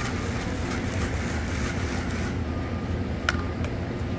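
Steady vehicle running noise: a low hum with a sharp click a little after three seconds in.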